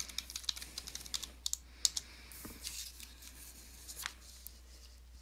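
Typing on a computer keyboard: a quick run of keystrokes for about two seconds, then a few scattered clicks.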